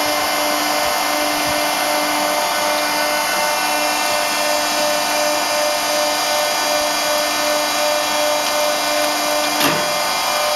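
Plaster panel making machine running: a steady motor drone with a whine, and a single knock near the end.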